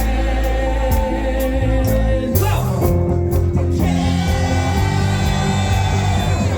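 Live band playing a yacht rock song, with sung vocals over guitar, bass and drums. The cymbal strokes drop out for a moment about two and a half seconds in, then come back.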